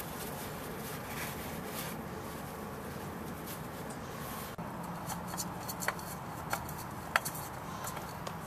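Steady low background noise, changing about halfway through to a faint hum. Three or four sharp, light clicks of hands handling parts come in the second half.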